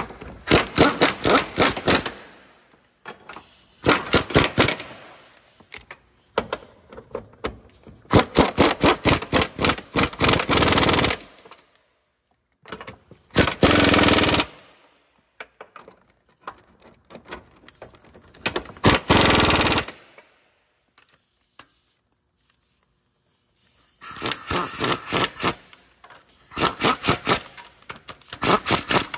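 Cordless power tool running bolts down in repeated short bursts of rapid clicking, stopping and starting again about eight times.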